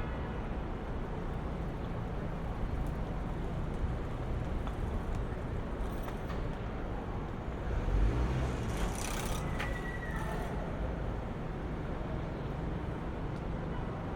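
City street traffic: a steady rumble of engines and tyres, with a louder vehicle passing about eight seconds in and a hiss lasting a couple of seconds just after it.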